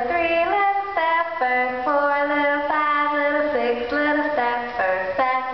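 A high voice singing a slow melody, holding each note and stepping to a new pitch about twice a second.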